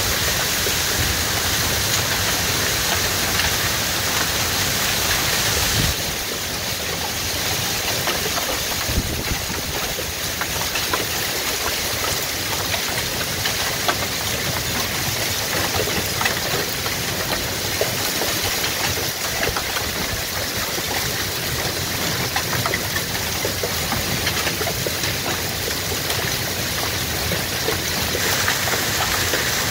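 Heavy, wind-driven rain from a severe thunderstorm downdraft pouring onto the roof, yard and street: a steady rush of rain and gusting wind with scattered sharp taps of drops. It drops slightly in level about six seconds in.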